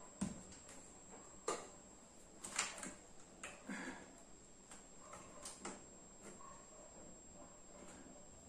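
Scattered light clicks, knocks and rustles of hands fitting tubing and cables inside an open PC tower case.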